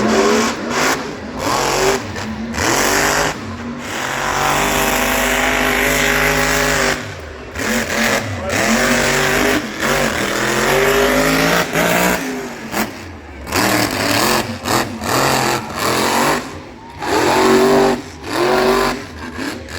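Monster truck engine revving hard, its pitch rising and falling again and again, with many short breaks in the sound.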